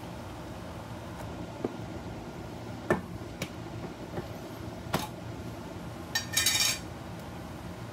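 Kitchenware clinking: a few sharp, separate clinks, then a short rattling scrape near the end, over a steady low background noise.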